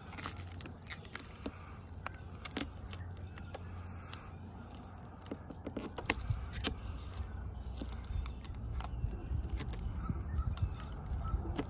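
Black Plasti Dip film being peeled by hand off a car badge: faint scattered crackles and small ticks, over a low rumble that grows louder about halfway through.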